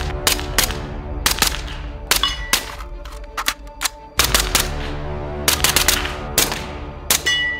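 A SIG Spear LT rifle in 300 Blackout, fitted with an Energetic Armament Peak 30 silencer, fires several suppressed shots of Hornady 220 gr subsonic ammunition, so there is no supersonic crack. Each shot is a sharp report with a short ringing tail. Background music plays throughout.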